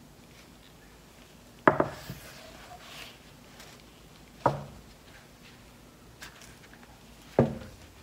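Three single knocks a few seconds apart, as the wooden frame of a stretched canvas bumps down on the table while it is tilted to spread poured acrylic paint. Between them there is a faint rustle of handling.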